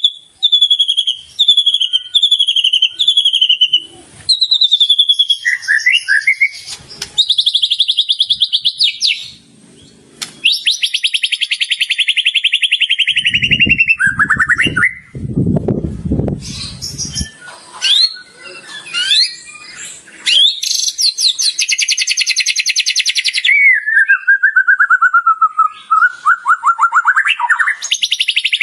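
White-rumped shama (murai batu) singing a loud, varied song: a run of repeated descending whistled notes about once a second at the start, then fast buzzy trills and sweeping whistles, with a low rough rasp lasting a couple of seconds about halfway through.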